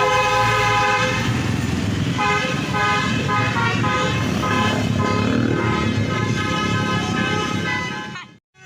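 Multi-tone telolet horn of a tour bus playing a run of notes, changing pitch from note to note, over the bus's engine rumble. It cuts off abruptly near the end.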